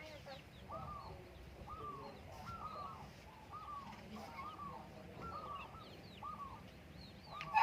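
Perkutut (zebra dove) cooing: a steady run of short arched notes, more than one a second, with faint high chirps of small birds behind.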